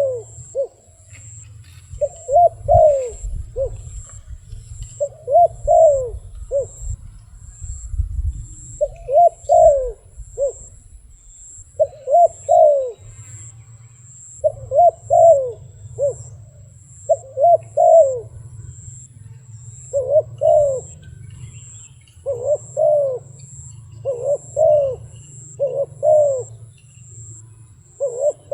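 Wild dove cooing: a short phrase of two or three quick arching coos ending in a brief clipped note, repeated about every two seconds, over a low rumble.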